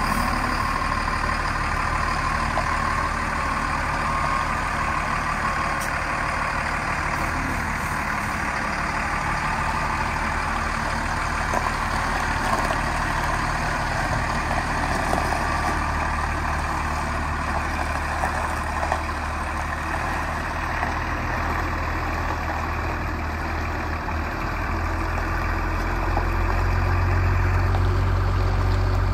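2004 Freightliner bucket truck's Mercedes-Benz diesel engine idling steadily, its low hum growing louder near the end.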